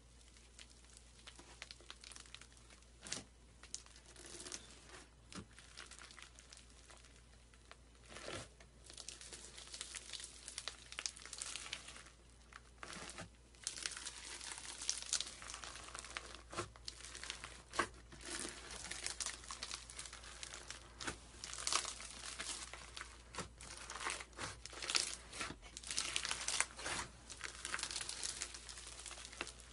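A hand pressing, rubbing and squeezing a bed of small foam beads, giving a crinkling, crackling rustle made of many short strokes. The strokes grow busier and louder about halfway through.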